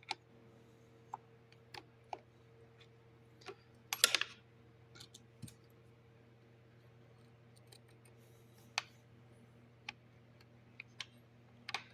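Scattered light clicks and taps of metal parts on a motorcycle's rear wheel assembly being worked by hand, with a louder clatter about four seconds in, as a part that should pull off refuses to come free. A faint steady hum runs underneath.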